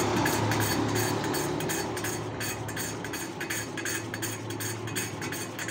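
Valve being lapped by hand against its seat in a small air-cooled single-cylinder head: a rhythmic gritty metal-on-metal scraping and clicking, a few strokes a second, over a low steady hum.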